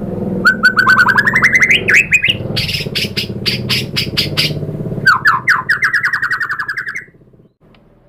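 White-rumped shama (murai batu) singing: rapid runs of sharp clicking notes and fast rising trills, loud, stopping about seven seconds in. A steady low hum sits underneath.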